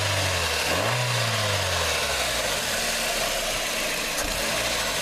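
2008 Hyundai Accent's 1.6-litre four-cylinder engine running on its stock intake, with a brief rev that rises and falls about a second in before settling back to idle; a meaty sound.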